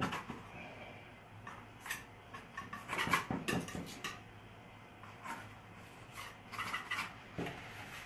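Faint scraping and clicking of a paintbrush working thick oil paint on the canvas and the palette, in a few short clusters, the busiest about three seconds in and again near seven seconds.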